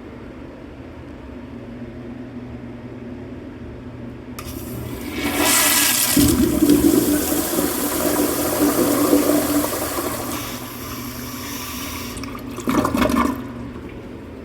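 1979 Crane San Walton toilet flushing: a loud rush of water starts about four and a half seconds in, runs strongly for about five seconds, then eases into a lower steady flow as it refills, with a short loud gurgle near the end.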